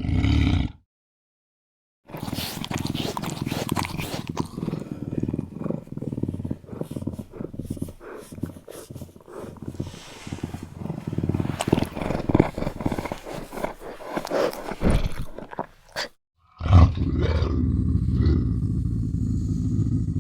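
Eurasian lynx vocalizing in separate takes. A brief call at the very start is followed by a second of silence. Then comes a long stretch of irregular, choppy calling, and after a short gap near the end a sudden loud onset leads into steadier calling.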